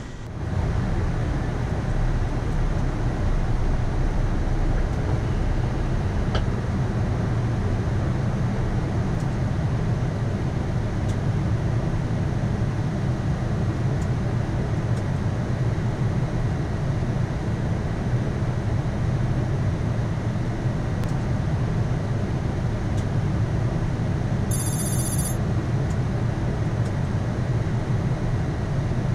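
Steady low rumble of a Boeing 787-9's flight deck in flight on approach. Near the end a brief, high, pulsing ringing chime sounds for under a second.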